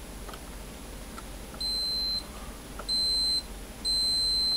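A multimeter's continuity beeper gives three short, high, steady beeps, the last a little longer. Each beep marks continuity between the probed connector pin and a terminal on the power distribution board, here showing that the 15-volt return and 5-volt return are wired together.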